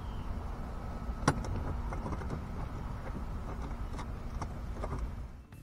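Steering-mechanism bracket being handled and fitted onto its mounting bolts in a fiberglass boat console by hand: one sharp click about a second in and a few lighter clicks near the end, over a steady low rumble.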